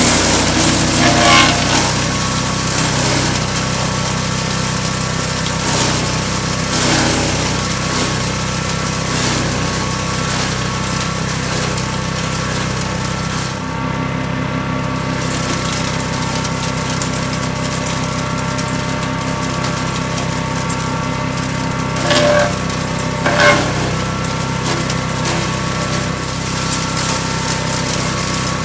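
Fuel-engined wood chipper running steadily, with short louder crunches several times as branches are fed in and chipped, two of them close together near the end.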